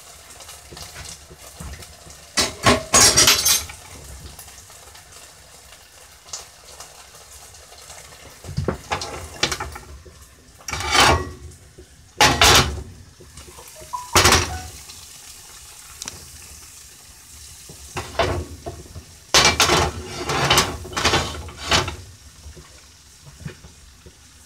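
Kitchen dishes, pans and utensils clattering as they are handled, in short irregular bursts with quieter stretches between.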